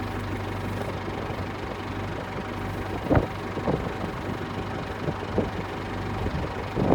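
An engine idling steadily, with a few short knocks over it.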